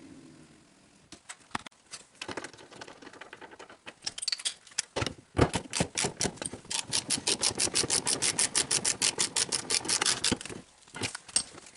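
Ratchet wrench clicking fast and evenly, about seven clicks a second, as a seat mounting bolt is driven. Before that come a few scattered clicks and knocks of the seat and trim being handled.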